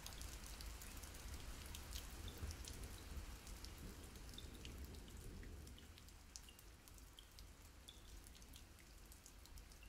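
Faint rain ambience: scattered drips and light patter over a low rumble, easing slightly about six seconds in.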